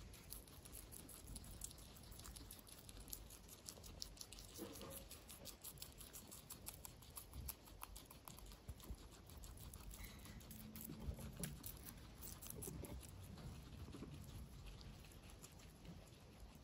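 Several guinea pigs chewing fresh greens: faint, rapid crisp crunching and nibbling clicks.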